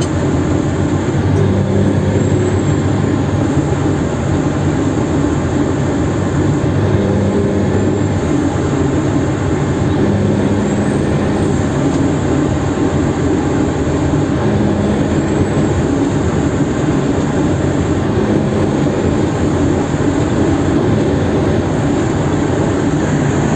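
A heavy truck hauling a Tonar trailer, running steadily with a faint high-pitched whistle over the engine and road noise.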